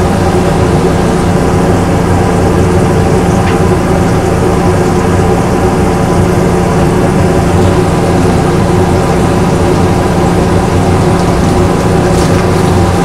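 Steady, loud mechanical hum of a running motor, holding one constant pitch throughout.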